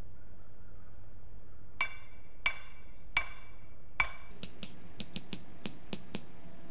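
A hammer striking a metal stake to drive it into the ground: four ringing metallic blows about two-thirds of a second apart, then a quicker run of about nine lighter taps.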